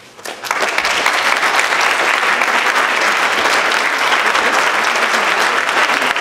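Audience applauding: many hands clapping, starting suddenly about half a second in and holding steady and loud.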